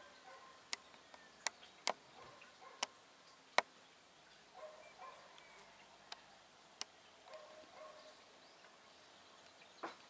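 Faint outdoor ambience with short, scattered bird calls and about seven sharp clicks, several close together in the first four seconds.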